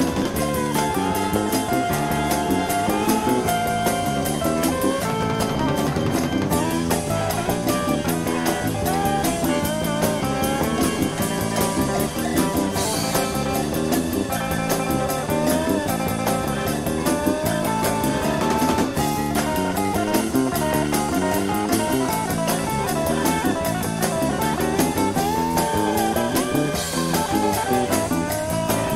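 Pop-rock band music with a steady drum beat, played from a 1970 vinyl LP on a turntable.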